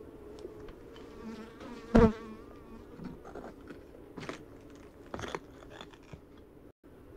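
Honeybees buzzing at a wild hive in a lava tube wall: a steady wavering hum, with one bee passing loud and close about two seconds in. A few shorter, fainter passes follow, and the sound drops out briefly near the end.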